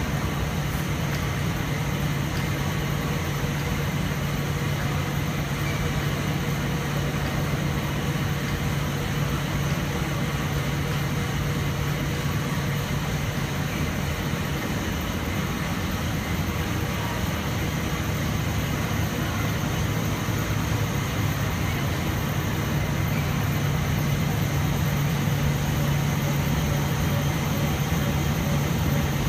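Rotogravure printing line running: a steady mechanical hum with a low, even drone and no breaks.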